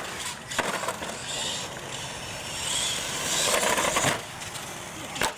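Radio-controlled monster truck running on concrete: hard landing thuds near the start and again near the end, with the motor and tyres rising to a louder whine around three seconds in.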